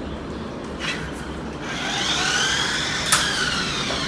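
Small electric motor and gears of a toy remote-control car whining as it drives, the pitch rising and falling with the throttle, with a couple of sharp clicks.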